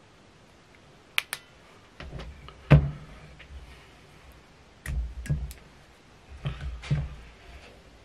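Scattered clicks and low knocks from hands handling a fly-tying vise and a UV resin-curing torch: two sharp clicks, a louder knock about three seconds in, then two short clusters of clicks and knocks.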